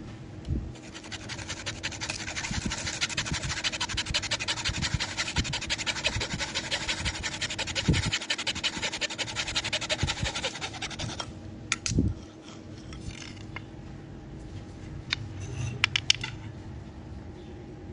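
Small hacksaw sawing through a thin dried bamboo strip in quick back-and-forth strokes, stopping about eleven seconds in. A single knock follows, then a few light clicks near the end.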